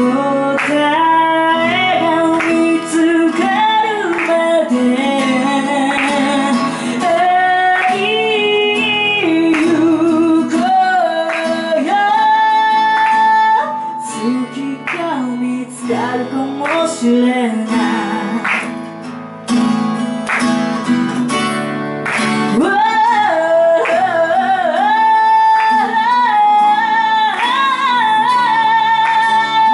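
A woman singing a song in Japanese while strumming her own acoustic guitar. The performance drops to a softer passage in the middle and comes back fuller about three-quarters of the way through.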